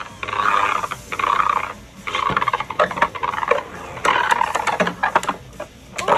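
Two Beyblade Burst spinning tops whirring and scraping across a plastic stadium floor in rough patches, with sharp clicks as they strike each other or the stadium.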